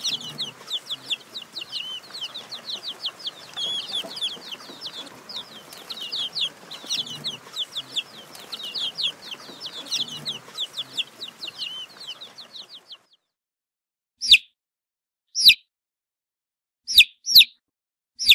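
Baby chicks peeping: rapid high peeps, several a second, over a low background hiss. About thirteen seconds in the background drops away and only five separate single peeps follow, spaced a second or so apart.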